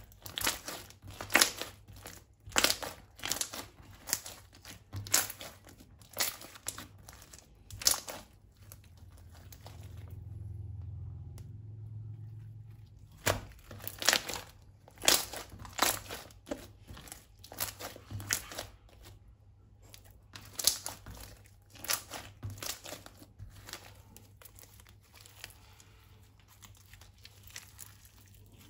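Repeated crinkling and crackling from slime-making materials being handled, about one sharp crackle a second. The crackles pause for a few seconds near the middle, where a low rumble rises, and they thin out toward the end.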